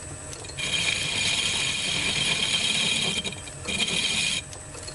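Metal lathe turning the flange off a 1930s Sturmey-Archer K three-speed hub shell, the machine's drive running steadily underneath. The tool is taking a light cut of about a tenth of a millimetre, a high metallic ringing hiss that starts about half a second in, breaks off just after three seconds, and comes back for under a second near the end.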